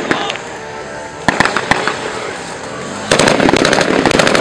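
Small-arms gunfire: a run of rapid shots dies away, a few single shots come about a second in, then dense rapid firing starts again about three seconds in.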